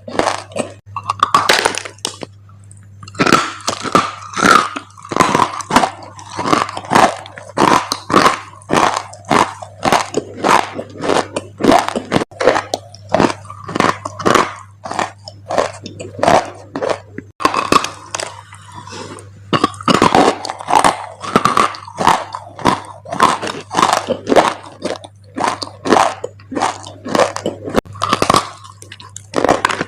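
Dry clay crunching and crumbling in repeated sharp crunches, about two or three a second, with short pauses, over a faint steady low hum.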